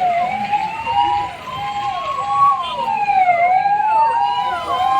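Several emergency vehicle sirens sounding at once: a slow wail rising and falling every few seconds, layered over quicker falling sweeps repeated over and over.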